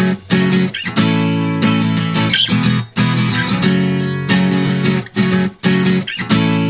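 Background music: strummed acoustic guitar chords in a steady rhythm, with short breaks between chords.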